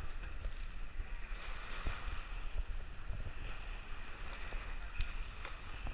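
Wind buffeting the microphone over the gentle wash of small waves at the shoreline, with a few faint splashes.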